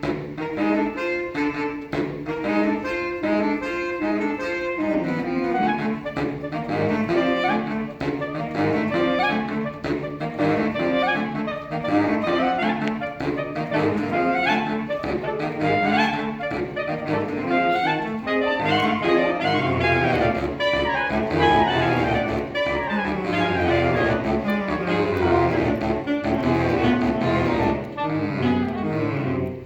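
Saxophone quartet playing live, a fast, busy passage of many short notes; the low voices grow fuller about two-thirds of the way through.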